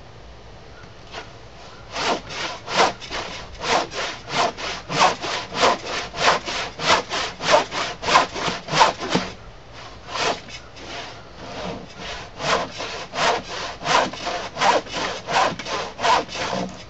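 Handsaw crosscutting the end of a thick glued-up wooden workbench top, in steady back-and-forth strokes of about three a second. The strokes start about two seconds in, pause briefly near the middle, then carry on until just before the end.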